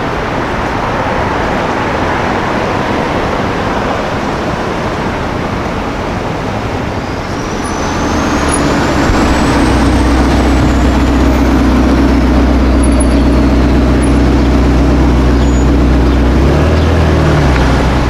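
City street traffic, then from about eight seconds in a Ferrari Portofino's twin-turbo V8 running steadily at low revs close by, a low steady drone as the car crawls in traffic.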